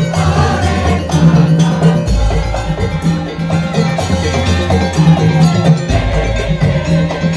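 Madurese tong-tong (ul daul) percussion ensemble playing: a driving, repeating beat of drums and struck wooden and metal percussion with a melody line over it.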